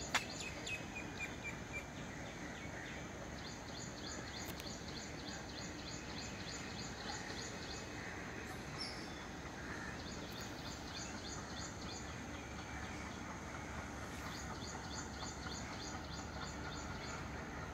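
Steady outdoor background noise with a rapid high-pitched chirping that repeats several times a second, breaking off briefly a little after the middle and then resuming.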